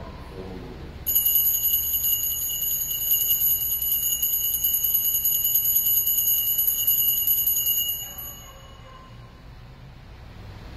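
Altar bells shaken in one continuous high, fluttering ring for about seven seconds, then stopping, the customary signal for the elevation of the host at the consecration.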